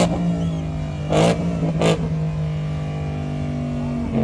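Car engine held at a steady raised speed right after being revved up, with two short sharp bursts of noise a little over a second in and just before two seconds. The revs drop off at the very end.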